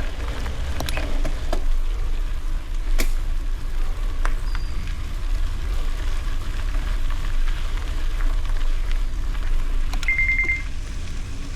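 Wind rumble on the microphone and rolling noise of a bicycle riding on gravel, with a few sharp clicks and rattles in the first half. Near the end, a short high electronic beep.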